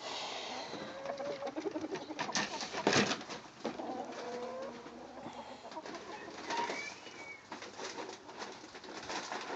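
Chickens giving soft, low cooing calls in the barn, with a few sharp knocks among them, the loudest about three seconds in.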